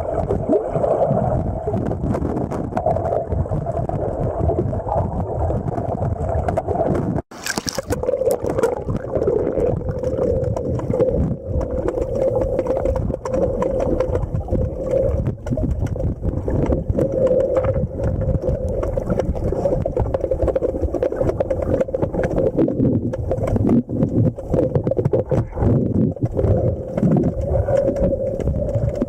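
Underwater noise on a river bottom: a steady low rumble of moving water with scattered crackling clicks and a steady hum, broken by a brief dropout about seven seconds in.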